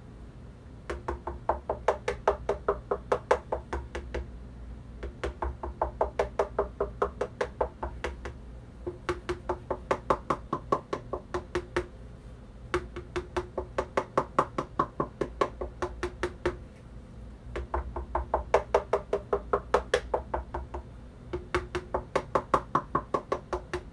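Knuckle-rap test on the platters of two Sony PS-X555ES direct-drive turntables, one stock and one damped with a supplemental MDF plinth, to compare their resonance. There are six runs of quick knocks, about four or five a second, that switch between the two platters, and each knock has a short ringing tone.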